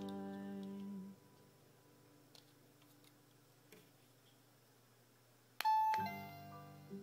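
A melody stops about a second in, and a few faint clicks follow in the near quiet. Near the end, an Anpanman toy door chime sounds a sudden bright electronic chime tone, and musical tones come in right after it.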